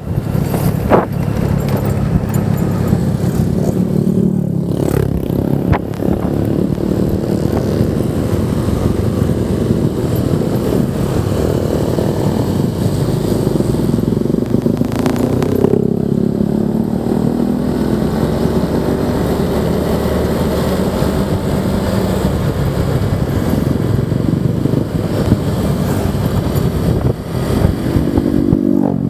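Honda Vario 125 scooter's single-cylinder engine running on the move, its pitch rising and falling with speed, under a steady heavy rumble of wind on the microphone.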